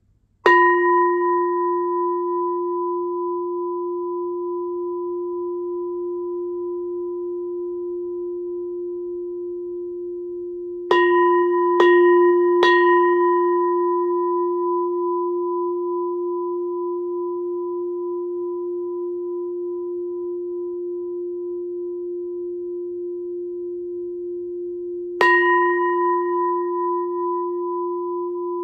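Antique Japanese brass orin, a hammered Buddhist standing bell, struck with a wooden striker: once at the start, three quick strikes about eleven seconds in, and once more near the end. Each strike rings on as a long, steady low tone with higher overtones, slowly dying away with a gentle pulsing waver.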